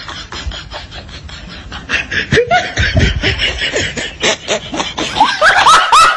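Rapid bursts of laughter that grow louder about two seconds in, turning high-pitched near the end.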